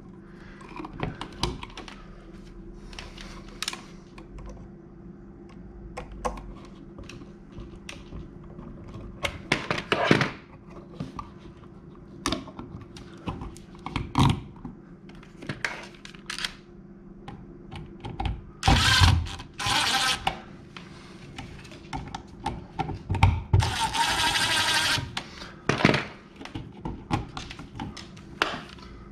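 Clicks, taps and scrapes of a plastic duplex outlet and its stiff wires being folded and pushed into a metal electrical box. Two longer scraping rustles come in the second half.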